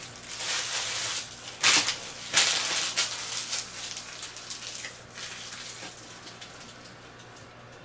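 Clear plastic packaging bag crinkling as it is picked up and handled, in several loud rustling surges over the first three seconds that die down to a faint crackle.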